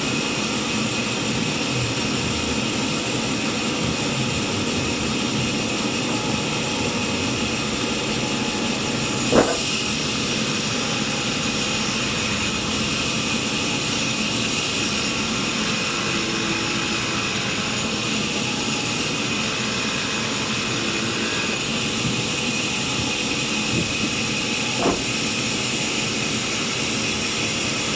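Sawmill machinery running steadily, a continuous machine drone with a high steady whine in it, broken by a sharp knock about nine seconds in and a smaller one near the end.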